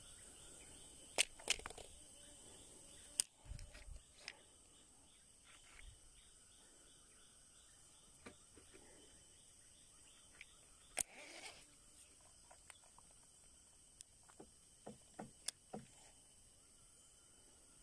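Scattered sharp clicks and taps from a baitcasting reel being handled, its spool, handle and thumb bar worked by hand, over a faint steady high-pitched insect hiss. A short cluster of clicks comes near the end.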